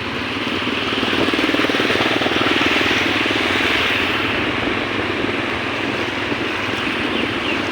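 Small boat engine running steadily, with water and wind noise around it; it grows a little louder about a second in and eases off again after about four seconds.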